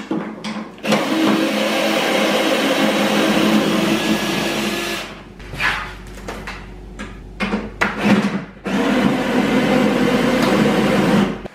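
Cordless power tool's motor running steadily for about four seconds, then in several short bursts, then steadily again, as it backs out the mounting bolts of a snowmobile's rear skid.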